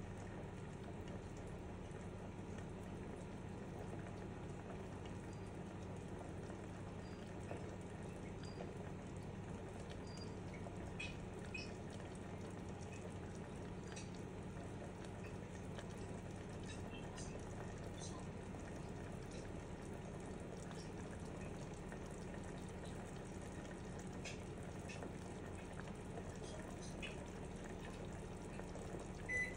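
Lidded aluminium pot of carrots simmering on a gas burner: a steady low hiss and hum with faint, scattered bubbling pops.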